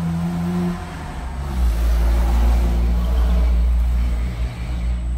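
A Jeep's engine revving in the street, a deep rumble that swells about a second and a half in and eases off near the end.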